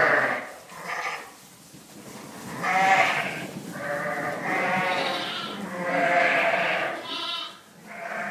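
A flock of sheep bleating, one wavering call after another with short pauses between them.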